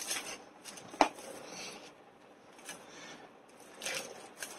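Box contents and packaging being handled on a table: rustling and light clicks, with one sharper knock about a second in.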